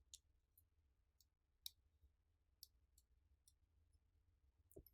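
Near silence, broken by a few faint, light clicks of small phone parts being handled, and a soft knock near the end.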